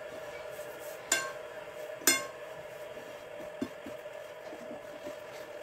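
Hands rubbing and turning coarse semolina and flour in a ceramic bowl, a soft gritty scraping, with two sharp clinks against the bowl about a second apart near the start. A steady hum runs underneath.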